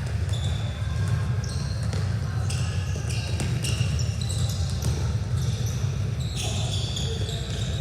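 Sneakers squeaking on a gym court in many short, high-pitched chirps as players move, over a steady low hum of the hall.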